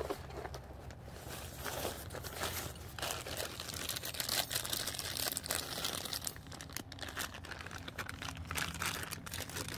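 Rustling and crinkling of the thin fabric of a deflated Christmas inflatable being handled and unfolded by hand, then a clear plastic parts bag crinkling near the end.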